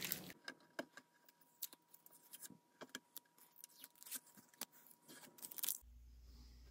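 Near silence: faint scattered ticks and clicks, with a low steady hum starting near the end.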